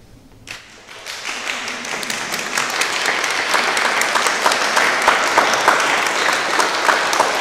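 Audience applauding: the clapping starts about half a second in and swells over the next couple of seconds into steady applause.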